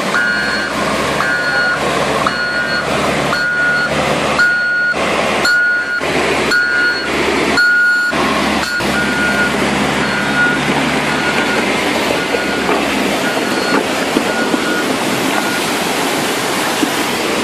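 Rushing muddy floodwater, with a Caterpillar wheel loader's reversing alarm beeping about once a second over its low-running engine. The beeping fades and stops a few seconds before the end, and the engine drops away about thirteen seconds in.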